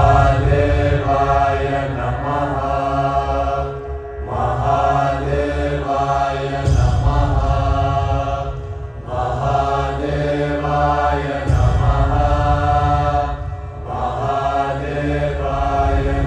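Devotional soundtrack music: a group chant sung in repeated phrases of about two seconds each, over a deep low accompaniment that swells with each phrase.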